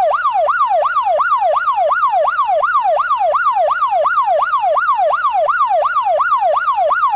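Police siren in its fast yelp mode: a rapid up-and-down wail repeating about three times a second, steady and unbroken.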